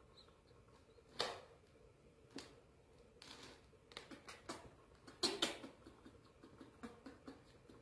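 Scattered soft rustles, taps and clicks of hands handling baby monkeys on cloth in a cardboard box. The sharpest click comes about a second in, and a short cluster of louder rustles comes about five seconds in.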